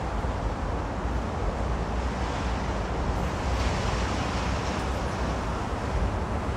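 Steady outdoor city background noise with a low rumble and no single distinct event.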